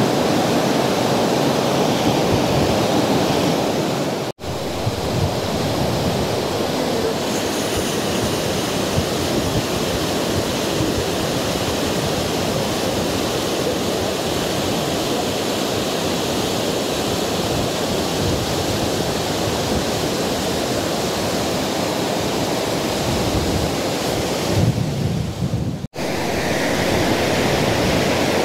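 Steady rush of fast-flowing river water, cutting out sharply for an instant twice, about four seconds in and near the end.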